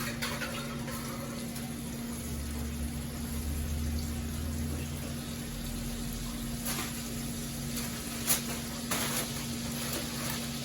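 Shrimp sizzling in a hot pan in butter-flavoured oil, over a steady hum, with a few sharp clicks in the second half.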